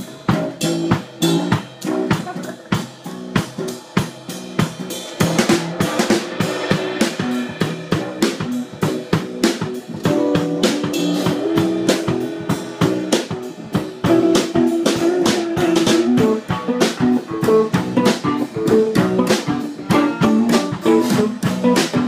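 Rock band jam: an electric guitar strumming chords over a drum kit playing a steady beat. The music gets louder about five seconds in and again about ten seconds in.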